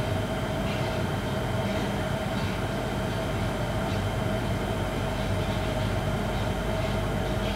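Cremator running during a cremation: a steady roar of forced air blown into the chamber, with a constant hum from the plant.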